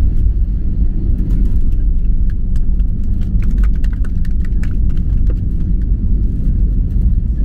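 Cabin sound of an Airbus A320 rolling down the runway after touchdown: a loud, steady low rumble from the wheels and engines, with a run of light clicks and rattles between about one and five seconds in.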